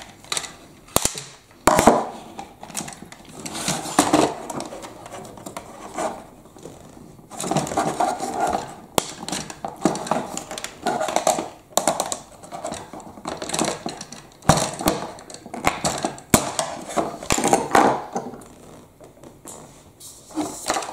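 Screwdriver working on the hard plastic parts of a Bruder toy telehandler, prising them apart: repeated sharp clicks and scraping, with plastic pieces rattling and knocking on the table.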